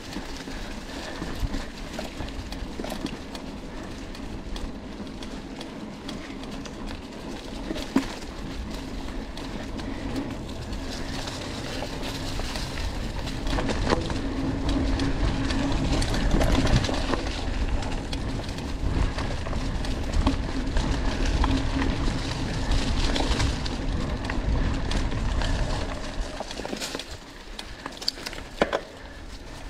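Mountain bike riding over a rough forest trail: tyre noise and a steady rattle, with a few sharp knocks over bumps. It gets louder through the middle and eases off near the end.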